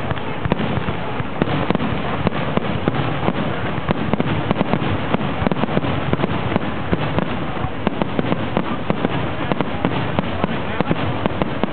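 Fireworks finale heard from a few hundred yards away: a dense, unbroken barrage of bangs, many shells a second, over a continuous rumble.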